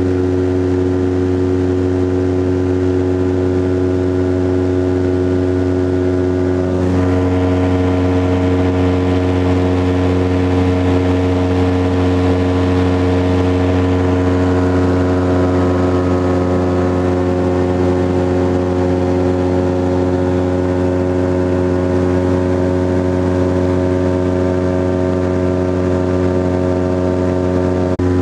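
Titan Tornado light aircraft's engine and propeller droning steadily in flight, heard from inside the cockpit. About seven seconds in, the tone shifts slightly and a hiss swells for several seconds, then fades.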